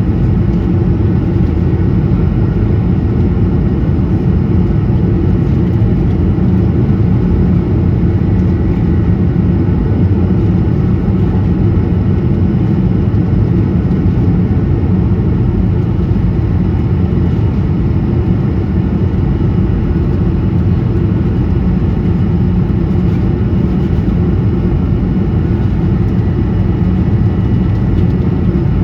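Steady engine and airflow noise of an Airbus A220 in flight, heard inside the cabin: an even, deep rush with a few faint steady whining tones above it, its Pratt & Whitney geared turbofans running at a constant setting.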